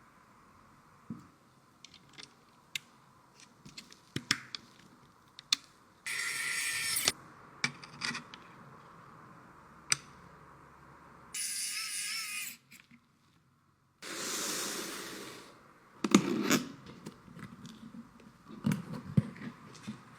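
Computer parts and their packaging being handled: scattered light clicks and taps, broken by a few short bursts of packaging rustling and tearing, each about a second long.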